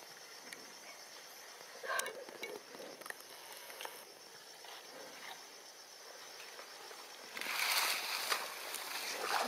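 Insects trilling steadily in the background, with a few soft clicks and rustles. About seven seconds in a louder rustling noise comes in.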